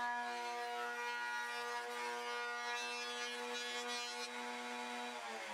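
Table-mounted router with a round-over bit running at speed, a steady high whine while the edge of a walnut paddle is rounded over. Near the end the whine starts to drop in pitch as the motor spins down.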